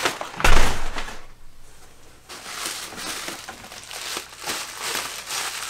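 Packing paper crumpling and rustling as hands rummage in a large cardboard box, with a loud crunch and low thump about half a second in, then quieter rustles and scrapes.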